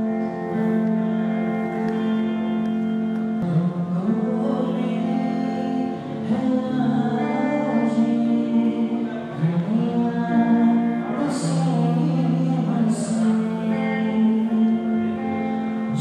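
A man singing a slow Hindi film ballad into a microphone with long held notes, accompanied by sustained electric guitar chords. The guitar rings alone at first, and the voice comes in a few seconds in.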